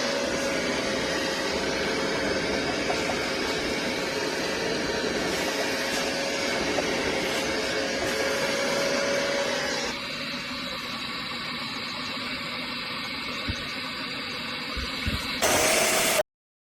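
BISSELL Little Green portable spot cleaner's suction motor running: a steady whine over a rushing air-and-suction hiss. About ten seconds in the sound turns quieter and thinner. It swells briefly near the end, then cuts off abruptly.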